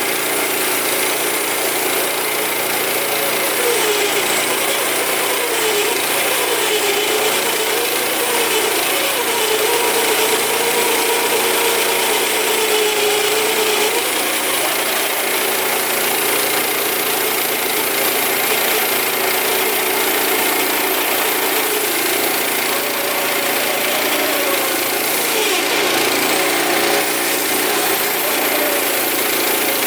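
Woodland Mills HM122 band sawmill's 9.5 hp engine running steadily, its pitch sagging and recovering several times, in the first half and again near the end. It is the engine powering down under cutting load, which the owner puts down to an adjustment issue.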